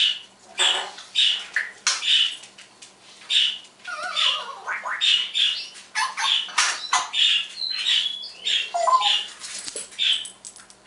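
African grey parrot giving a rapid run of short, high chirps and whistles, with a falling whistled glide about four seconds in.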